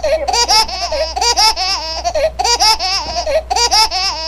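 High-pitched laughter in quick, rhythmic bursts of rising and falling 'ha-ha' notes, over a steady low hum.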